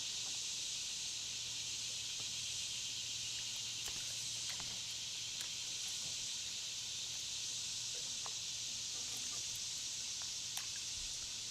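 Quiet outdoor background: a steady high hiss with a faint low hum underneath and a few light clicks.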